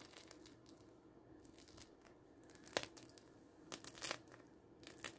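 Crisp crust of a freshly baked artisan loaf crackling faintly under a pressing finger: one sharp crack about three seconds in, then a cluster of crackles near four seconds and a last small one near the end. The crackle is the sign of a well-baked, crisp crust.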